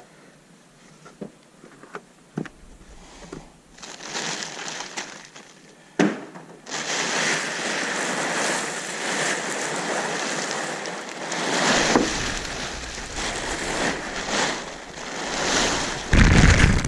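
Plastic sheeting rustling and crinkling as it is handled, turning loud about seven seconds in after a few light knocks, with heavy thumps near the end.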